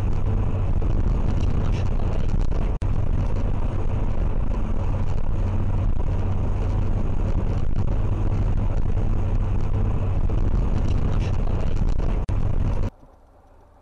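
Steady road and engine noise in the cabin of a car cruising at highway speed, picked up by a dashcam's microphone, with a strong low hum. It stops abruptly near the end.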